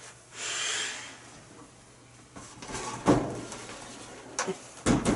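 Handling noise from a box fan being turned around by hand: a short scraping rush about half a second in, then a run of knocks and bumps in the second half.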